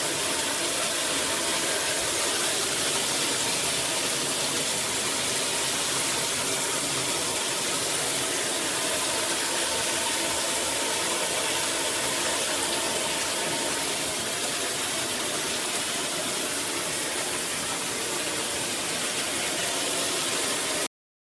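Water spraying steadily from a Veken 11.8-inch rain shower head, an even hiss of falling water that cuts off suddenly near the end.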